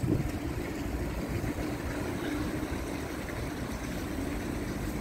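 Steady outdoor background noise: a low rumble with a faint steady hum over it and no distinct event.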